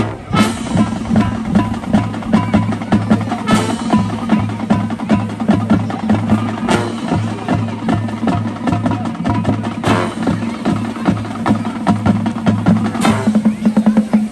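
Marching band playing a percussion-heavy passage: drums drive a steady rhythm over a pulsing low bass line, with a cymbal crash about every three seconds.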